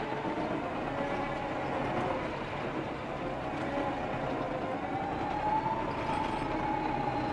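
Cat bulldozer's diesel engine and drivetrain running under working load, heard from inside the cab, with a steady whine over the engine that rises a little and falls again about five to six seconds in.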